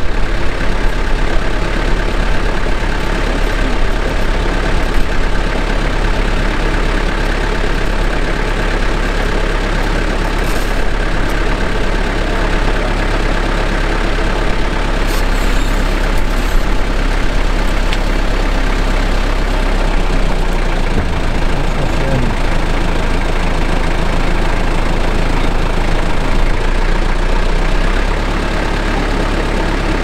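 Recovery tow truck's engine idling steadily. Its low hum changes pitch about two-thirds of the way through and again near the end.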